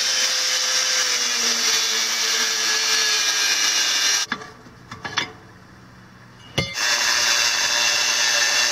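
Angle grinder with a cut-off disc cutting through a steel plate, a steady loud grinding whine. It breaks off for about two seconds in the middle, with a few clicks, then carries on cutting.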